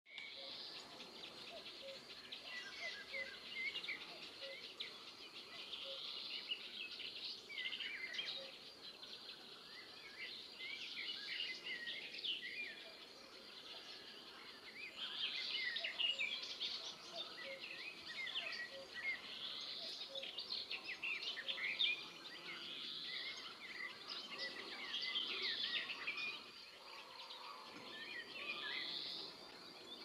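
Several birds singing, many short high chirps and trills overlapping in phrases every few seconds, over a faint steady background hiss.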